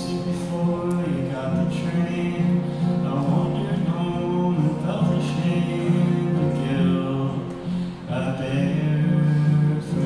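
Solo acoustic guitar playing sustained chords while a man sings long, held lines over it.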